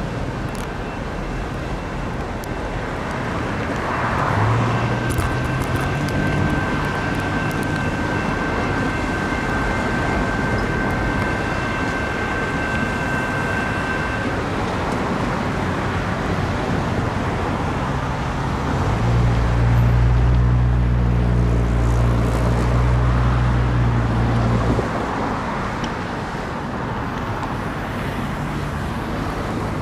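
Road traffic passing a level crossing, then the low drone of an EMD GP38-2 locomotive's two-stroke V16 diesel as the freight train moves away. The drone grows louder for about six seconds past the middle, then drops back.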